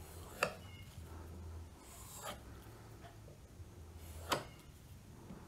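Hunting knife blade being stropped on a leather strop charged with polishing compound: a faint, soft rubbing that polishes the bevel and takes off the last of the burr. Two sharp light clicks stand out, about half a second in and again about four seconds in.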